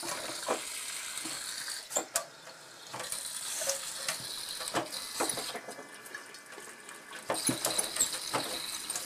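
Broken sink making irregular clicks and taps over a faint hiss of water.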